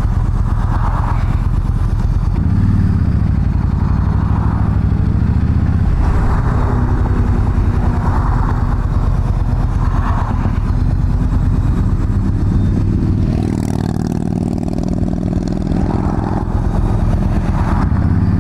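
Yamaha V-Star 1300's V-twin engine running under way, its pitch rising and falling with the throttle, easing off and dropping about three-quarters of the way through.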